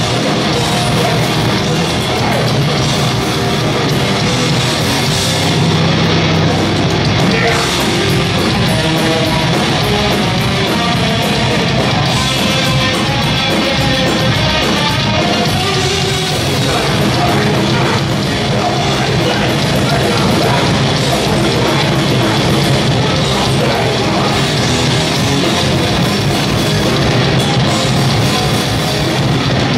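A heavy hardcore-metal band playing loud live, with distorted guitars and drums.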